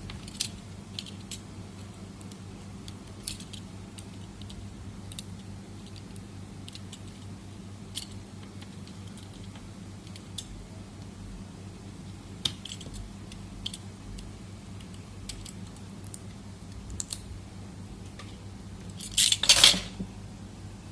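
Scattered small clicks and taps of a screwdriver and small laptop parts being handled during disassembly of a Dell Latitude E5430, with a louder metallic clatter lasting about a second near the end, over a steady low hum.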